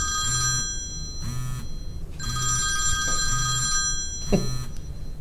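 Telephone ringing: a ring that ends about a second in, a short pause, then a second ring of about two seconds.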